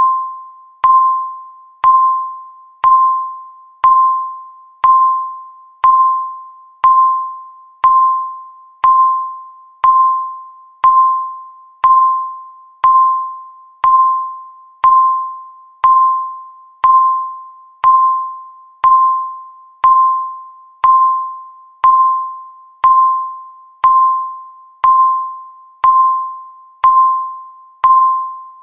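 Countdown timer tick: a sharp, single-pitched electronic tick once every second, each one ringing briefly and fading before the next.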